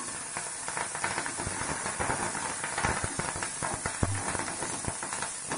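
Tempering in hot oil in a kadai: green chillies, cashews, mustard seeds and dals sizzling steadily, with many small crackling pops throughout.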